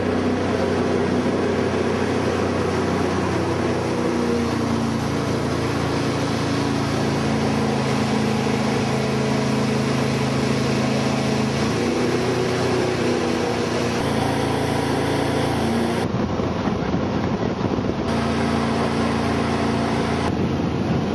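Jet boat running at speed up the river: a steady engine drone over a broad rush of water and wind. The sound jumps abruptly a few times in the second half.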